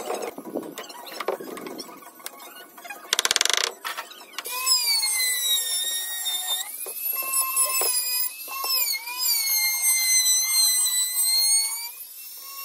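Scattered knocks and a short rattling burst about three seconds in. Then, from about four seconds in, an electric trim router runs with a high whine, its pitch dipping and recovering as it cuts the HPL laminate edges flush along the top of a plywood cabinet.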